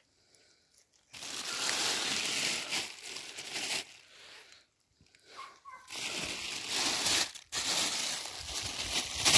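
Plastic bag rustling and crinkling as it is handled, in two long stretches: one starting about a second in, the other from the second half onward.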